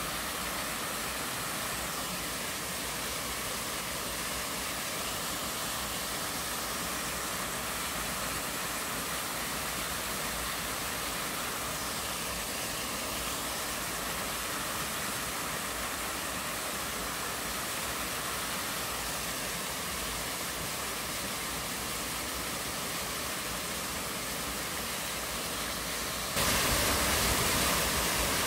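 Steady rush of a small twin-stream waterfall, about 5 m high, splashing into a rock pool. It steps up suddenly louder near the end.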